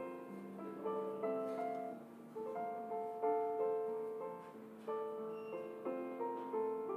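Soft background piano music: a slow melody of single notes over chords, each note struck and then fading.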